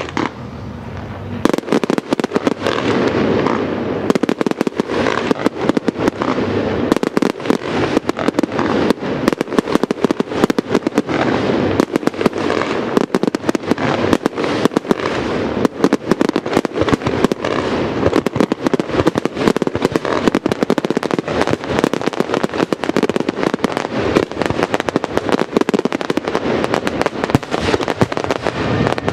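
Fireworks going off in a dense, continuous barrage of rapid bangs and crackles, starting about a second and a half in.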